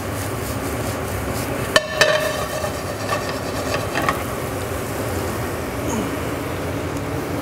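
Green beans and walnuts sizzling in butter in a stainless steel sauté pan on a gas burner, with a sharp clank of the pan about two seconds in and lighter clinks around three and four seconds.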